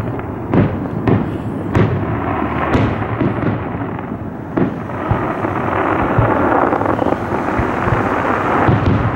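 Fireworks display going off in the distance: a continuous rumble of overlapping bursts, with several sharper bangs standing out in the first half.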